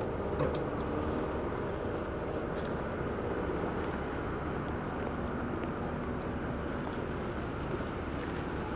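Steady low rumble of distant engines. A faint hum wavers slightly in pitch over the first few seconds.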